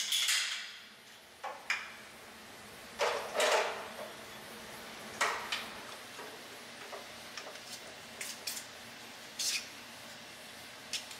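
PEX tubing, fittings and hand tools being handled on top of a water heater tank: scattered light clicks and clatters with short rustling scrapes, the loudest scrape about three seconds in.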